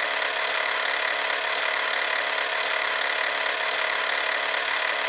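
A steady, even hiss like static, unchanging in level, with no rhythm or pitch movement.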